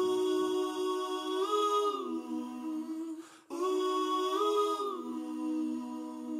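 A single voice humming or singing wordlessly in the soundtrack music, with no clear accompaniment. It makes two long phrases, each a held note that steps up and then slides back down, with a short break between them.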